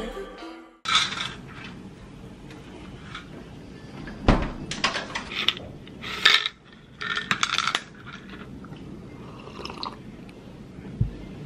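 Supplement capsules rattling out of a plastic pill bottle into a palm, in several short bursts of clicking, with a low knock about four seconds in.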